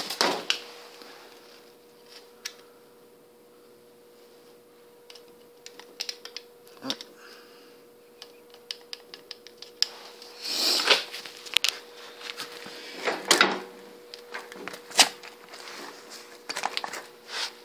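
Hands handling tools, cables and parts: scattered clicks and knocks, with louder bursts of rustling and clatter past the middle, over a faint steady hum.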